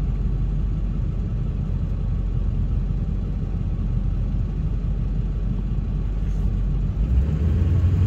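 Steady low rumble of engine and road noise inside a pickup truck's cab while driving, growing louder in the low end near the end.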